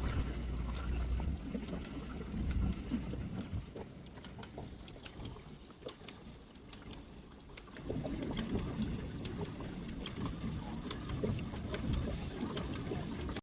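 Small boat being paddled on calm water: faint water and paddle noise with small knocks, under a low rumble that fades after about three seconds and a busier patch of paddling noise from about eight seconds in.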